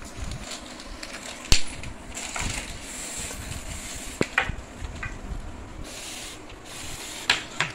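Wooden IKEA LAIVA bookshelf panels being taken out of their packaging and laid on a tile floor: paper rustling, with a sharp knock about a second and a half in and a few lighter knocks near the end.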